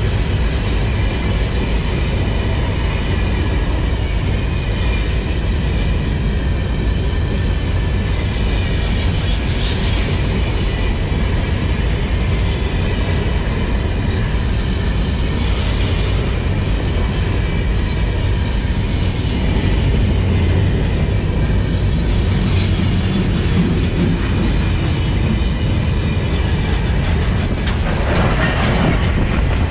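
Wagons of a very long Mauritanian iron ore freight train rolling past close by. It makes a loud, steady rumble of steel wheels on rail, broken by a few louder clanks.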